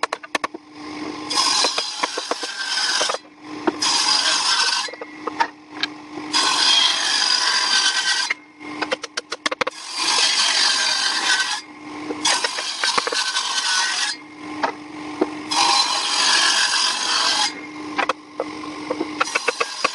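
A tool working wood in repeated strokes, each about one to two seconds long, with short pauses between them. In the pauses a steady hum and small clicks can be heard.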